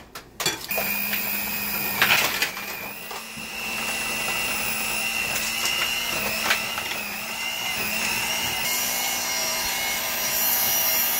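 Electric hand mixer switched on just under a second in and running steadily on high, its beaters whipping cream cheese and butter in a bowl, with a couple of brief knocks along the way.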